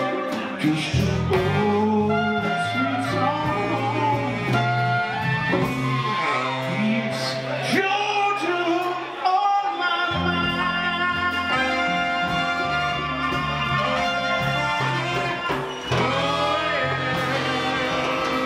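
Live soul band playing: electric bass, drums and horns under a singing voice. The bass and drums drop out briefly about nine seconds in, then come back.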